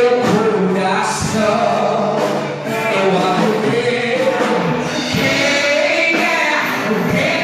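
Gospel worship music: several voices singing together over musical accompaniment, held notes and continuous.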